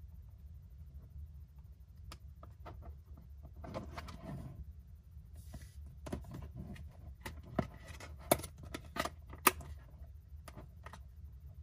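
Hands handling a Sony Discman D-J50 portable CD player: scattered light clicks and plastic rubbing as it is lifted and tilted, with a few sharper clicks about two thirds of the way in, over a low steady hum.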